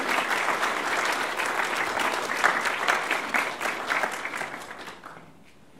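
An audience applauding, a dense patter of many people clapping that dies away about five seconds in.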